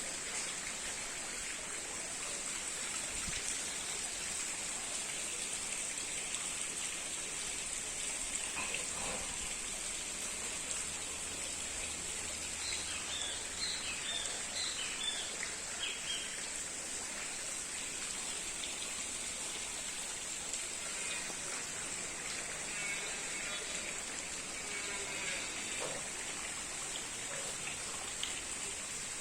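Steady outdoor background noise with an even high hiss, and a few quick runs of short, high chirps: one about halfway through and fainter ones near the end.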